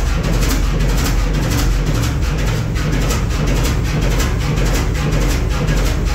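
Fairbanks Morse 32E six-cylinder two-stroke diesel engine running steadily at slow speed: an even, rapid beat of exhaust pulses over a deep rumble.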